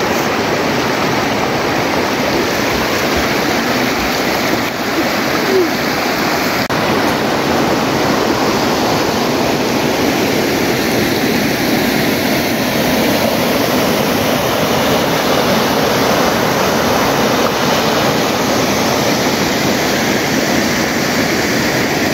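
Shallow river rushing over flat rock ledges and small rapids: a loud, steady rush of water.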